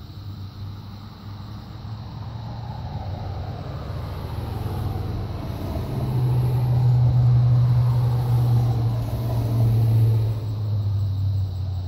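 Low, steady engine rumble that grows louder about halfway through and eases off near the end.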